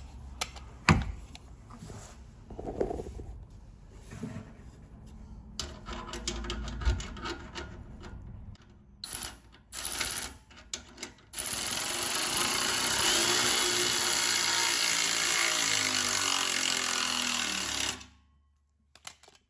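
Electric power ratchet running for about six seconds, driving an exhaust tip clamp bolt, its pitch sinking as the bolt snugs up, then stopping suddenly. Before it come scattered clicks and knocks of the tool and clamp being handled.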